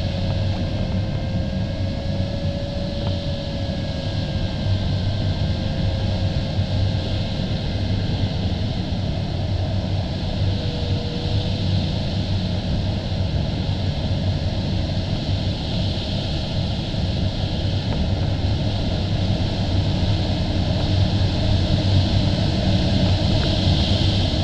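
Steady rushing airflow around the canopy of an LS-4a glider in flight, heard inside the cockpit as a constant low rumble and hiss. A faint steady tone that wavers slowly in pitch runs under it and fades out about eleven seconds in.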